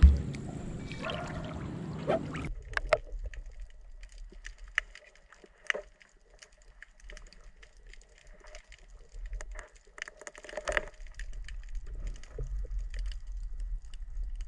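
River water sloshing and splashing around a person wading with a shrimp scoop net. About two and a half seconds in, this gives way to muffled underwater sound: a low rumble with scattered clicks and gurgles.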